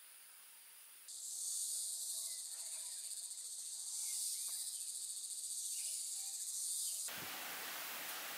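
A steady, high-pitched insect chorus starts suddenly about a second in over a faint background and cuts off abruptly near the end, where an even hiss takes over.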